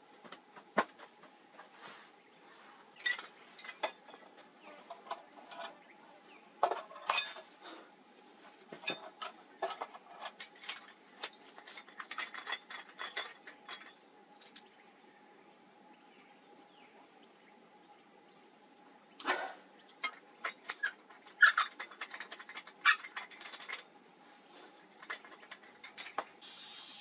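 Scattered clicks, clinks and light knocks from a metal hurricane lantern and a plastic bottle handled on a wooden stump table. A steady high insect drone runs underneath.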